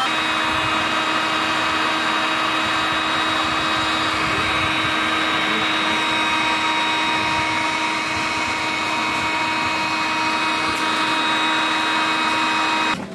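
Hot-air rework gun's blower running steadily with a whining tone, heating the graphics card's VRAM chips; it cuts off abruptly near the end.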